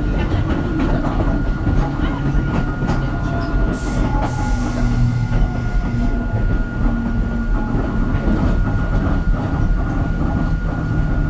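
Hakone Tozan Railway Moha 1 electric car standing still with its onboard machinery running: a steady low rumble under a constant high tone, with faint scattered clicks.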